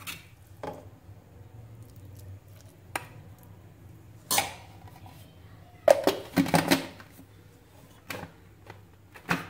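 A metal spoon scraping and knocking against a stainless steel pan as cooked minced meat is scooped out, heard as scattered separate clinks with a louder cluster about six seconds in.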